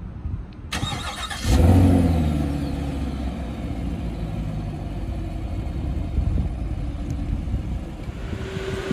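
2020 Chevrolet Camaro LT1's 6.2-litre V8 with dual-mode exhaust cranking and firing up about a second and a half in, with a loud flare of revs. It then settles into a steady fast idle that slowly comes down.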